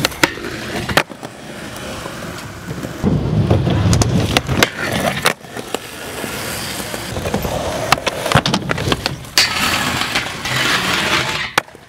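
Skateboard wheels rolling on concrete, broken by several sharp clacks of the tail popping and the board landing. Near the end the deck slides along a metal flat rail with a scraping hiss.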